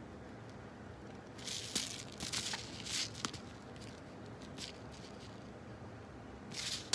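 A paper seed packet rustling and crinkling as it is handled and turned over, in several short bursts with a few light clicks, and another rustle near the end.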